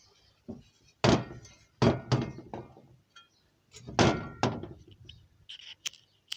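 A handful of hard knocks and thuds, about six in all. The loudest come about a second in, near two seconds in and near four seconds in, each dying away quickly.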